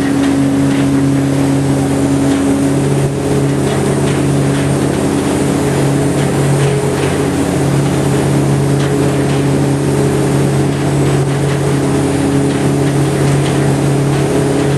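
Small ferry boat's inboard engine running steadily under way, a constant low hum, over the rush of water along the hull.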